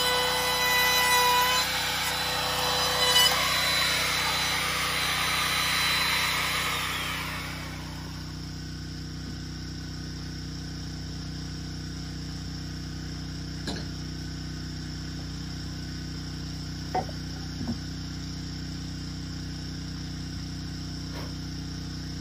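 Handheld electric router cutting into the end grain of a wooden beam, its motor whining at high speed, then winding down and stopping about seven seconds in. After that, a steady low hum with a few light knocks.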